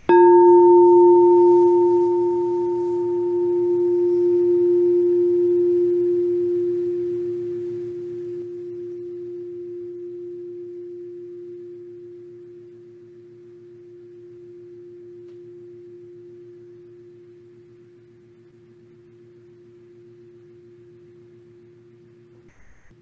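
Crystal singing bowl struck once, ringing one long low tone that swells and wavers as it slowly fades, with a higher overtone that dies away within the first several seconds. Rung to open a breathing practice, the ring stops abruptly near the end.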